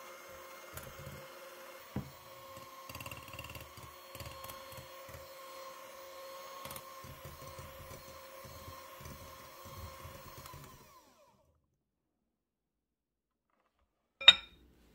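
Electric hand mixer running steadily, its twin wire beaters whipping egg whites into meringue in a glass bowl, with an even hum and irregular low rattling. The motor stops about eleven seconds in, and near the end there is one sharp clink of a metal whisk on the glass bowl.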